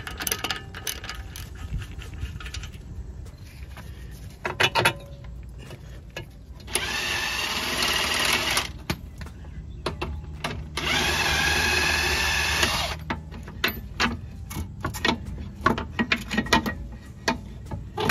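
A hand ratchet clicking on a socket as it turns off the control arm's 17 mm nuts, then a power impact wrench running in two bursts of about two seconds each, with metal tool clinks in between.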